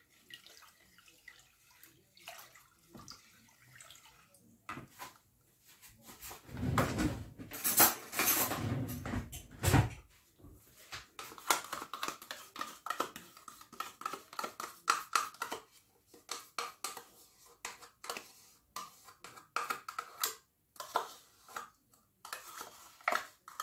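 Wooden spoon stirring a watery lemon and sugar mixture in a plastic bowl, with scattered knocks against the bowl and clinks of a metal teaspoon; a louder spell of stirring comes from about seven to ten seconds in.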